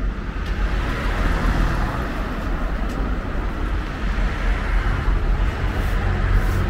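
Steady outdoor traffic noise with a deep low rumble, as a car drives slowly past close by through a car park.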